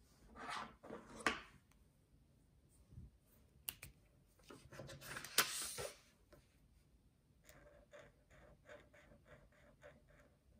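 Paper and marker handling: a short rustle and clatter as a pen is picked from the row, then a louder rustle with a couple of sharp clicks as the paper sheet is slid and turned on the table. Near the end, a dual brush pen scratches across the paper in quick short colouring strokes, several a second.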